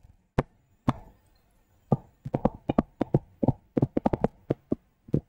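A stylus tapping and clicking on a tablet while handwriting a word: a few scattered sharp taps at first, then a quick irregular run of them from about two seconds in.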